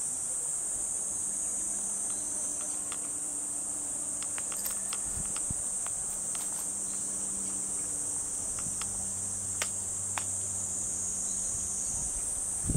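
A steady, high-pitched chorus of insects, with a few faint clicks here and there.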